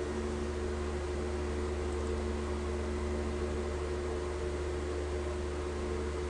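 Steady background hum with faint hiss and a few held tones, unchanging throughout; no clicks or other events stand out.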